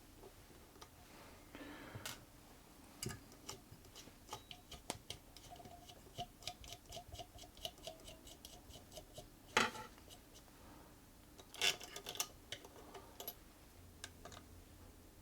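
Light metallic clicks and ticks of hand work on a Singer Featherweight 221K sewing machine as a part is worked loose: an even run of ticks, about three a second, from around four to nine seconds in, then a few sharper clicks.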